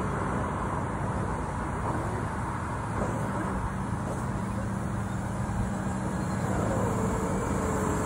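Steady rushing hiss of a compressed-air dryer-vent cleaning hose worked into a roof vent, blowing lint out, over a low steady machine hum.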